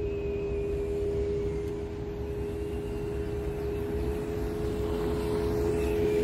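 RC car's motor running with a steady, even-pitched drone, over a constant low rumble.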